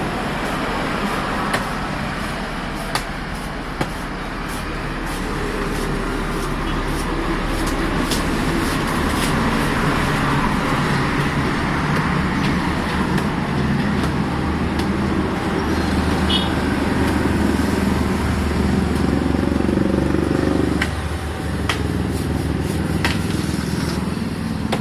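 Engine running under load, its pitch and level climbing through the middle, then easing off suddenly about three-quarters of the way through. There are a few sharp knocks over it.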